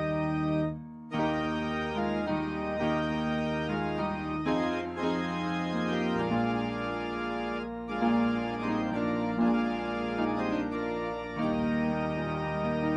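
Church organ playing slow, sustained chords, with a brief break in the sound about a second in.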